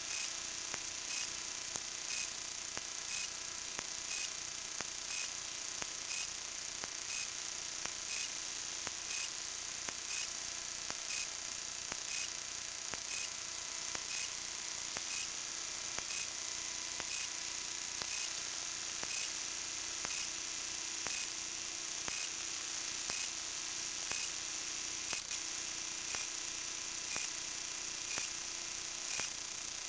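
Steady high hiss with a faint hum and a soft tick about once a second: the self-noise of a small camera hanging from a kite line, with nothing of the water below reaching it.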